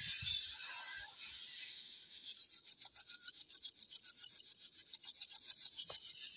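Baby birds chirping: a dense high chirping, then from about two seconds in a fast, even run of high peeps, about seven a second. These are begging calls from chicks being hand-fed.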